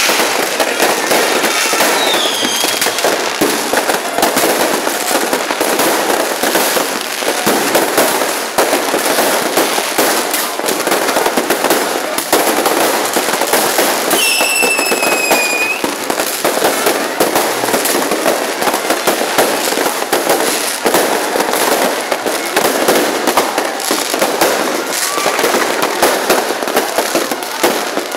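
Fireworks going off in quick succession: a dense, continuous crackling and popping of many aerial shells and firecrackers. Two falling whistles cut through, about two seconds in and again around the middle.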